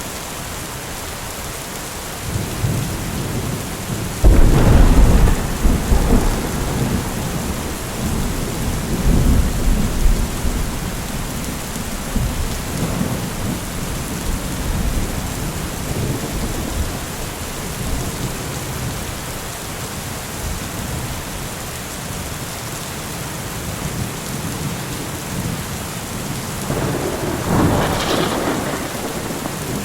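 Steady rain falling, with a loud clap of thunder about four seconds in that rolls on for several seconds, and a sharper crack of thunder near the end.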